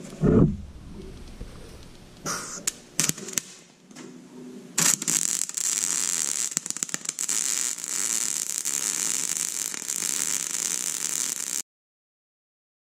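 Welding arc crackling and hissing: a few short bursts, then one steady run of about seven seconds that cuts off abruptly.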